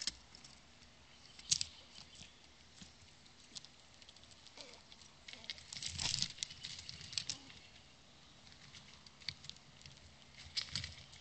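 Gray squirrel and chipmunk scrabbling and pattering on a stone slab close to the microphone: scattered small clicks and scratches of claws and food bits, with the busiest burst of scratching about midway as the chipmunk dashes in.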